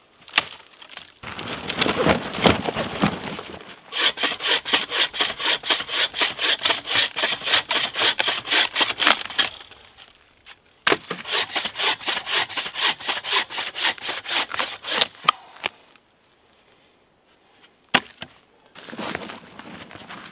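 Wooden-framed bow saw cutting dry deadwood in two long runs of quick, even strokes, about three a second. A stretch of cracking and splintering dry wood comes before them, and there is a single sharp crack near the end.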